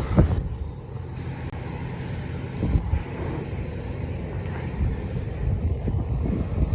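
Wind buffeting the microphone in gusts, a low rumble that rises and falls, with distant jet aircraft noise underneath.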